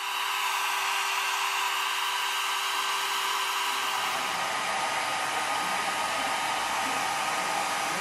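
Hand-held hair dryer running steadily, a continuous blowing sound with a faint steady whine; its tone changes slightly about halfway through.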